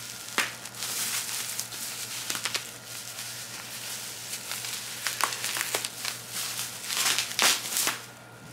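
Plastic bubble wrap crinkling and crackling as it is handled and pulled off a wrapped object. The crackles grow denser and louder about seven seconds in.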